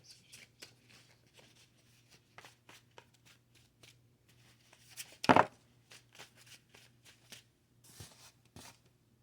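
Tarot cards handled and shuffled by hand: a run of quick dry clicks and riffles, with one much louder sharp snap about five seconds in.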